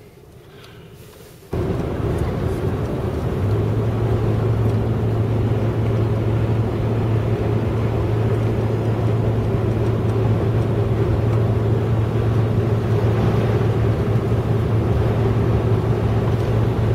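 A car's heater and defroster blower switched on, blowing steadily, with a steady low hum joining a couple of seconds later. It is running to keep the windshield from fogging up.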